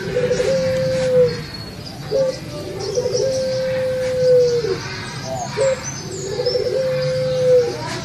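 A puter pelung (domesticated collared dove) cooing in three phrases, about one every three seconds. Each phrase is a short note and a quick stutter, then a long drawn-out coo held steady that drops away at the end. Faint high chirps of small birds sound once, near the middle.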